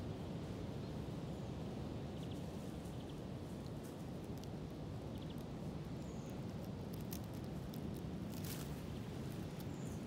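Cold wind blowing on the microphone as a steady low rumble, with faint scattered ticks throughout.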